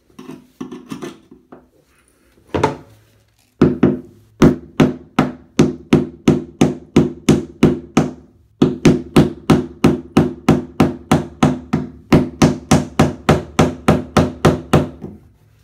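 Hammer striking the handle of a screwdriver wedged in a notch of a corroded bathtub drain flange, driving it round to unscrew the drain. A few light taps first, then steady rapid blows, about three a second, with one short pause about halfway.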